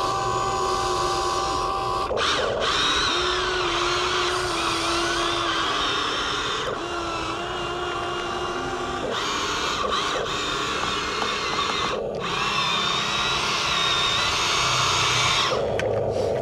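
Huina 1593 RC excavator's electric motors whining steadily as it moves its arm and tracks over the top of the mound. The pitch of the whine shifts several times as different motors start and stop.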